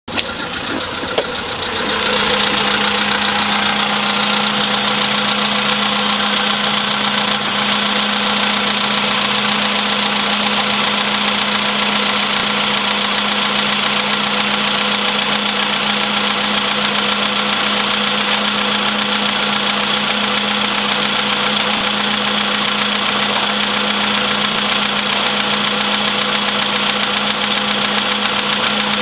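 Car engine idling steadily with a knocking rattle, the sign of an engine in bad mechanical shape. There is a sharp click about a second in, and the sound steps up to a louder, steady run about two seconds in.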